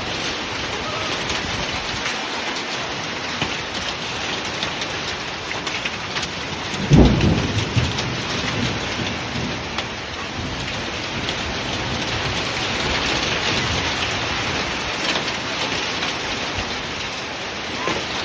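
Heavy rain mixed with ice falling steadily on surfaces, with one loud rumble of thunder about seven seconds in.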